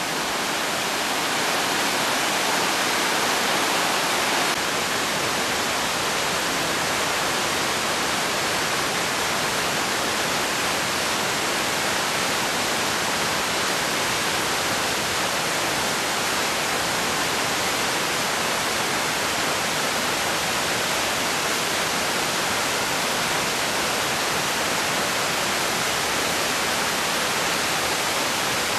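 Amicalola Falls, a tall cascading waterfall, sending water tumbling down over rock in a steady, unbroken rush.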